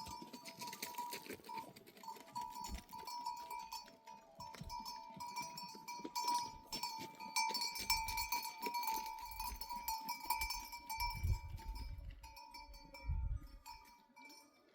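Neck bells on a flock of sheep clanking and ringing irregularly as the animals move and graze, with a few low thumps in the second half.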